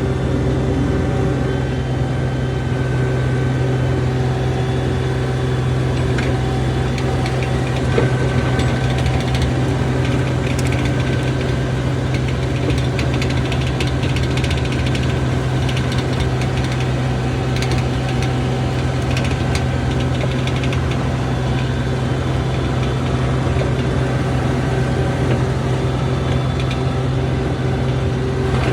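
John Deere 250 skid steer's diesel engine running at a steady speed, heard from on board the machine. Light rattles and clicks come through in the middle stretch.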